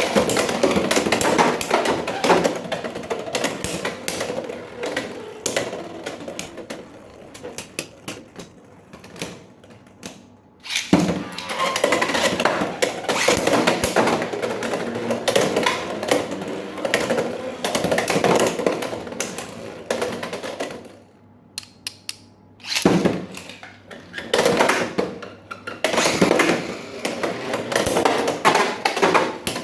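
Plastic packaging and small plastic toy parts being handled: rustling with many quick clicks and taps. The sound eases off twice for a second or two.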